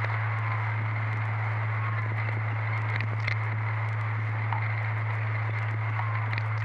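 Ambient soundscape music: a steady low drone under a dense hissing, crackling texture with scattered clicks and faint short chirps, and a couple of brief louder crackles about three seconds in and near the end.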